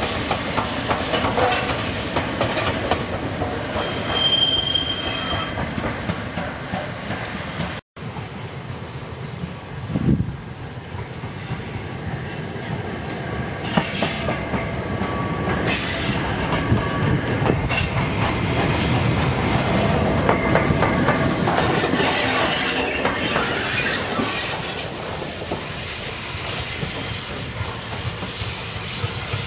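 Peppercorn A1 Pacific steam locomotive 60163 Tornado running past at low speed, with a brief high-pitched squeal about four seconds in. The sound cuts out for a moment about eight seconds in, then the locomotive is heard again as it approaches.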